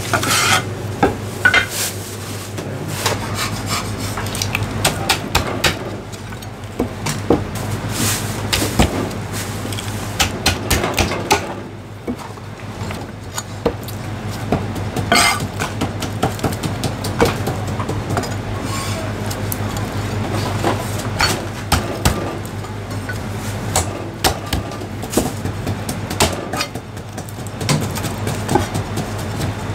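Heavy Chinese cleaver chopping braised meat on the bone against a thick round wooden chopping block: irregular knocks, some in quick runs, over a steady low hum.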